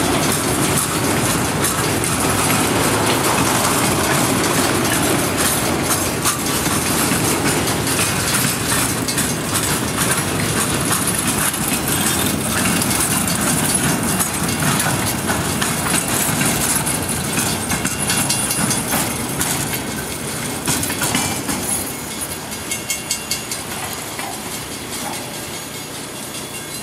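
Freight train cars rolling past, wheels rumbling and clicking over the rail joints. The sound dies away over the last several seconds, with a few separate clicks near the end, as the train moves off.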